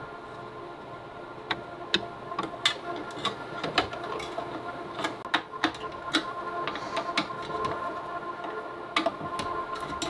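Irregular sharp clicks and ticks of a screwdriver and metal parts as a CPU heatsink is seated and its spring-loaded retaining screws are driven down onto a server motherboard.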